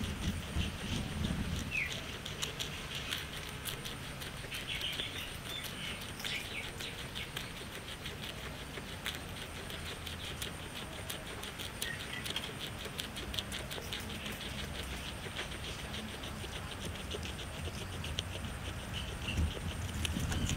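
Guinea pig chewing blades of para grass: a rapid, continuous run of small crisp crunches.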